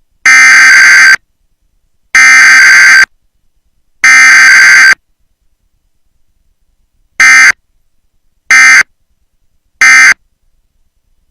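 Emergency Alert System SAME data tones: three loud, harsh, buzzy squawks of about a second each, then three short squawks with silence between. These are the digital header and the end-of-message code, with no attention tone between them, the pattern of a Required Weekly Test.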